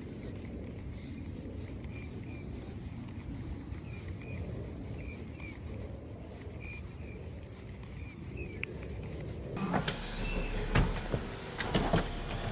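Outdoor ambience: a steady low rumble with small birds chirping in short two-note calls every second or so. About nine and a half seconds in, this gives way abruptly to sharp clicks and knocks.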